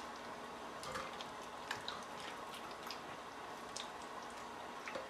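Faint kitchen sounds: sour cream and mayonnaise stirred in a glass bowl, with small scattered ticks and soft pops, about one a second, over the low hiss of beer simmering down in a frying pan.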